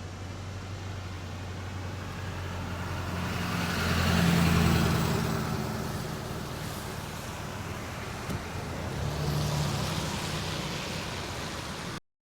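Road vehicles over a steady low engine hum: one vehicle swells up and fades about four seconds in, and another passes near the end. The sound cuts off suddenly at the very end.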